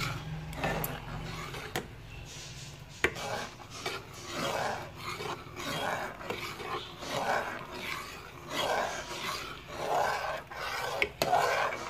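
Metal spoon scraping and stirring along the bottom and sides of a metal pot of vermicelli simmering in milk, in repeated strokes roughly one a second, with a few light clicks of spoon on pot. The stirring keeps the vermicelli from sticking to the bottom.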